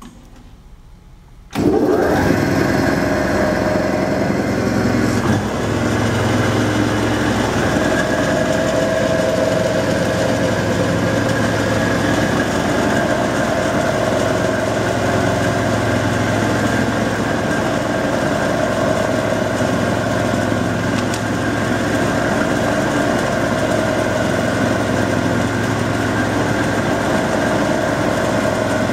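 Clausing 5914 metal lathe switched on about a second and a half in, its 2 HP three-phase motor and drive then running with a steady hum.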